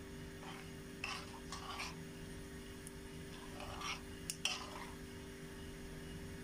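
Metal spoon stirring and scraping through foaming hot oil in a metal frying pan, in two bouts about a second and about four seconds in, with a couple of sharp clinks of spoon on pan during the second bout.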